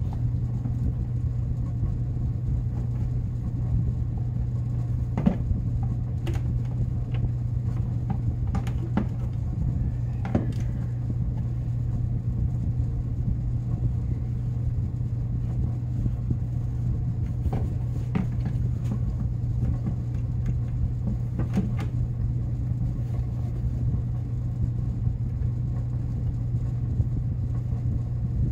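A steady low hum in the background, with scattered light clicks and knocks as a plastic snowmobile oil reservoir and engine-bay parts are handled.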